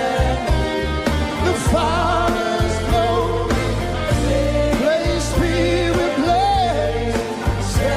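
Live gospel worship music: a band with a heavy bass line under a lead melody that glides and wavers.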